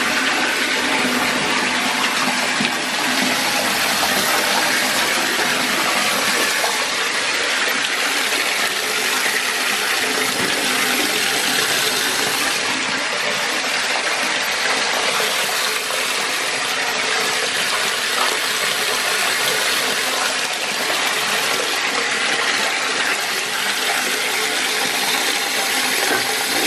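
Bathtub tap running hard, water pouring into a partly filled tub with a steady rushing splash.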